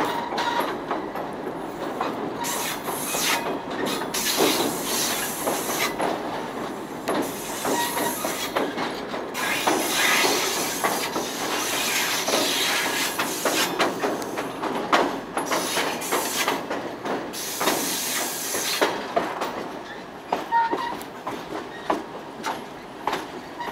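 Railroad cars rolling along the track: a steady rushing rattle with frequent clicks and clanks from the wheels and couplings.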